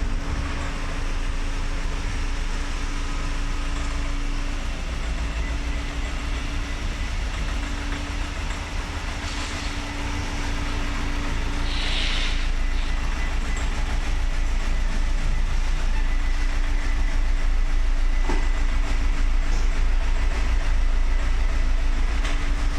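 Luxgen S3 car reversing, running with a steady low rumble and a metallic clunking noise that sounds like metal parts knocking together. There is a brief hiss about halfway through.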